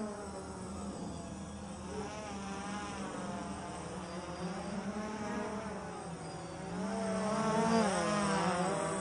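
Quadcopter drone's propellers buzzing in flight, their pitch wavering up and down as the motors change speed; the buzz grows louder from about seven seconds in.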